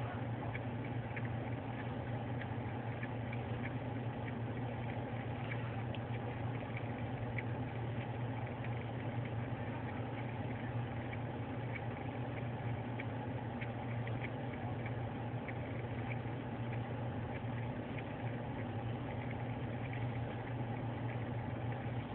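Car engine running steadily, heard from inside the cabin as a low hum, with faint irregular ticks over it.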